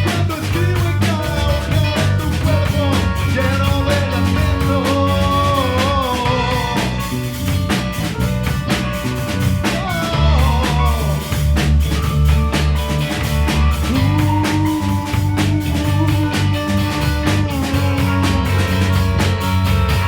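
Live rock band playing a song with a drum kit, bass and guitars, a melody line bending over a steady beat.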